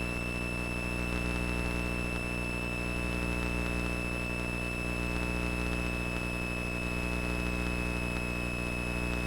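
Steady drone of a Cessna 172's engine and propeller in the cabin on final approach, with a thin steady high whine over it.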